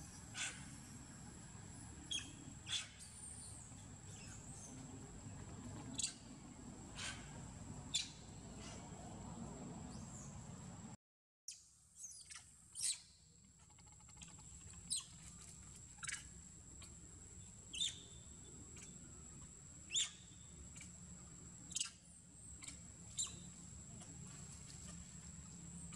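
Forest ambience: a steady high-pitched whine under short, high chirps that come every second or two, with a brief drop to silence about eleven seconds in.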